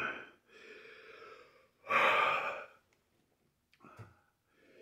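A man breathing hard through his mouth in a series of heavy, sighing breaths, the loudest about two seconds in, as he reacts to the burn of a ghost pepper he has just eaten.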